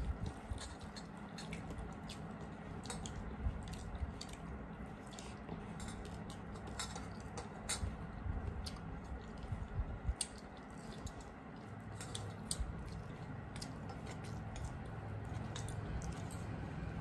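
Close-up eating sounds: chewing and lip smacks, with the squelch of rice and curry being squeezed and mixed by hand on steel plates, as scattered small wet clicks throughout.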